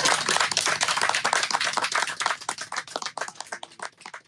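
A small group of people clapping, the claps thinning out and dying away near the end.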